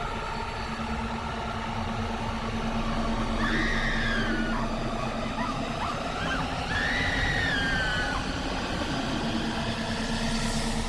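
Horror film soundtrack: a low rumbling drone with a steady hum underneath. Two long wailing tones rise and then fall, a few seconds in and again about three seconds later.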